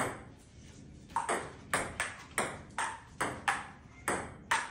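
Table tennis rally: the ball clicking off the paddles and bouncing on the table in an even back-and-forth, about two to three sharp clicks a second. After a hit at the start there is a lull of about a second before the clicks pick up again.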